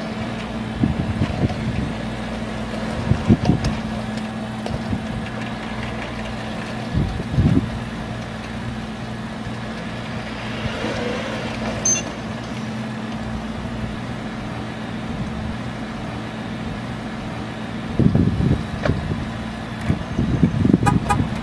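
A slow-moving vehicle's steady low engine hum, with louder low rumbles now and then, most of them near the end.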